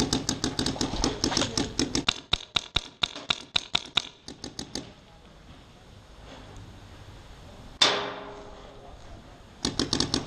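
Rapid strings of paintball shots, about eight pops a second, for the first few seconds and again near the end. A single loud crack comes about eight seconds in.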